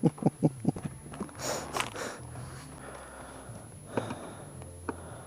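Screws being worked out of a plastic motorcycle top box with a Phillips screwdriver: a quick run of small clicks in the first second, then scraping and a couple of isolated clicks.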